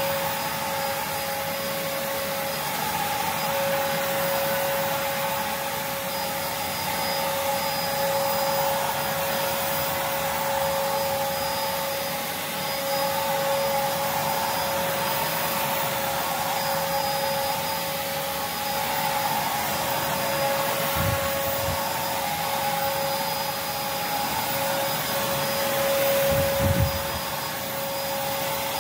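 Prolux X8 Elite backpack vacuum cleaner running steadily: a continuous motor whine over a rushing hiss of airflow. Two brief low thumps come late on.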